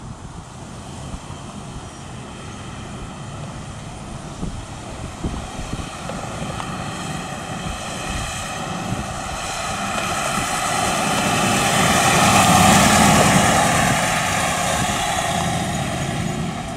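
1932 Marmon Sixteen's all-aluminium 8.1-litre sixteen-cylinder engine running steadily as the car drives by. The sound grows louder as the car approaches, is loudest about three quarters of the way through as it passes, then eases off as it pulls away.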